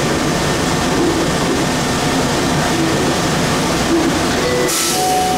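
Airport people-mover train standing at a station with its doors open: a steady rumble and hum of the car and station, with a brief hiss near the end.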